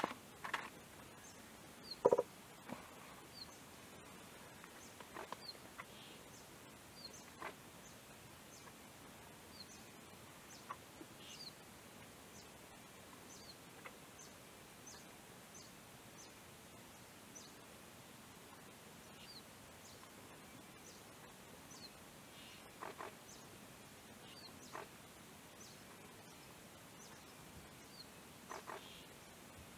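Scattered soft taps and scuffs of a male Mrs Hume's pheasant pecking and scratching at leaf litter and grit, the loudest about two seconds in. Behind them a faint, short, high falling chirp repeats every second or two.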